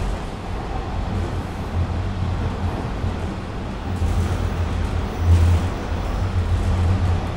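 Toronto subway T-1 series train running between stations, heard from inside the car: a steady, loud low rumble of wheels on rail and traction motors, swelling briefly a little over five seconds in.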